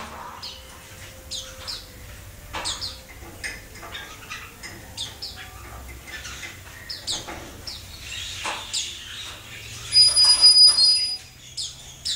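Caged red-whiskered bulbuls calling in short, repeated chirps. About ten seconds in, a loud steady high whistle lasts about a second.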